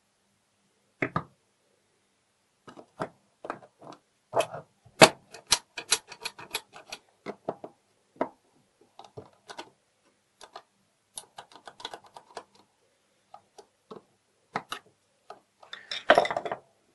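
Irregular metallic clicks and clacks from a steel mortise lock case and its inner parts being handled and worked by hand on a wooden workbench, densest a few seconds in.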